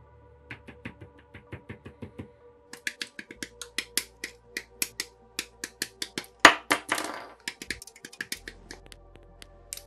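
Hobby nippers snipping plastic model-kit parts off their runners: a rapid run of sharp clicks and snips, growing louder a few seconds in, with the two loudest cuts a little past halfway.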